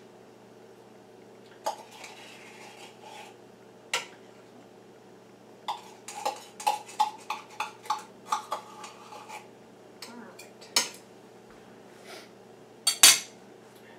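A metal spoon knocking and tapping against a stainless stockpot and a can, as tomato paste is scraped into the pot. A run of quick ringing taps, about three a second, fills the middle, with a few single knocks around it and the loudest clank near the end.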